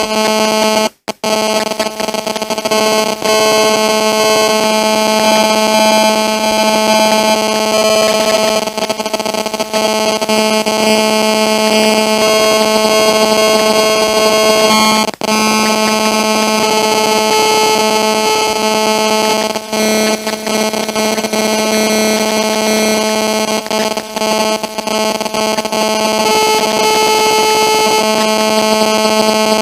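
Cellular phone interference: a loud, steady electronic buzz, cutting out briefly a few times.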